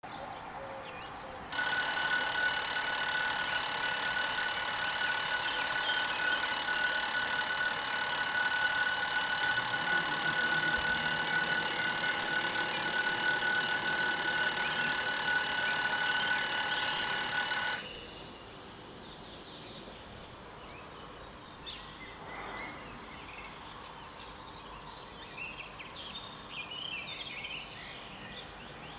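Level-crossing warning bells ringing steadily, a continuous ring of several fixed tones that starts about a second and a half in and cuts off suddenly after about sixteen seconds. Then only a faint outdoor background remains.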